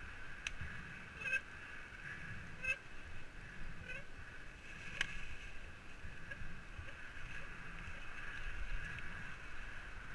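Mountain bike rolling fast downhill over a dry-leaf forest trail, with a steady rolling hiss and low wind rumble. Several sharp knocks in the first half come from the bike jolting over bumps.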